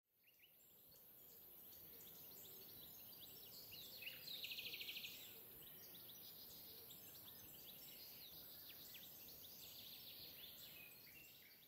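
Faint birdsong: many small chirps and whistles, with a rapid trill about four seconds in, fading in at the start over a steady hiss.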